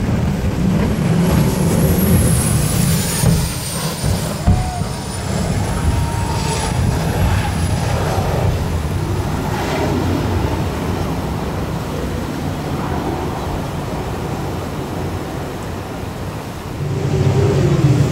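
Racing jet boat running hard up through river rapids, its engine carrying a thin high whine that rises and falls during the first half. Under it is the steady low rush of the white water.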